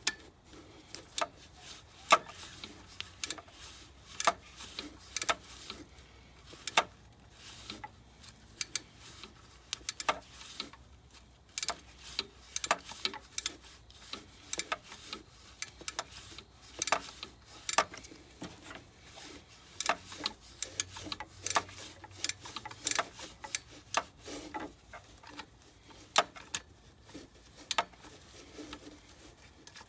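Hand tools clicking and tapping on metal, a ratchet wrench working the alternator's mounting bolt and battery power-lead nut loose. The clicks come irregularly, sometimes in quick runs, with single sharper knocks between.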